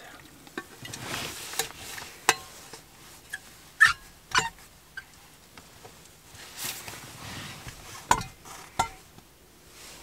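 Scattered clicks and knocks from a green metal thermos flask and its cup being handled, with the cap screwed back on after pouring coffee. Two sharper knocks come about four seconds in, and two more near the end.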